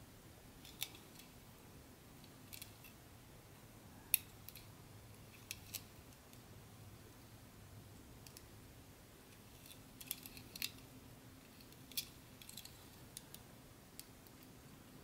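Scattered light clicks and snips of small hard parts being handled, about a dozen at irregular intervals, over a faint low hum.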